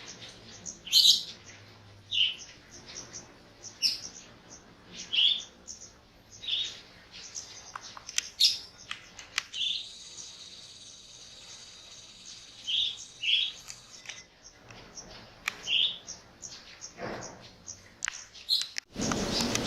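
Wild birds chirping, a short high call repeated every second or two. A steady high whine runs for a few seconds in the middle, and a loud steady hiss starts just before the end.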